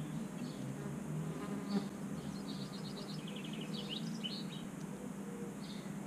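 An insect buzzing close by with a steady low drone. A small songbird sings a quick trill of short high notes in the background near the middle.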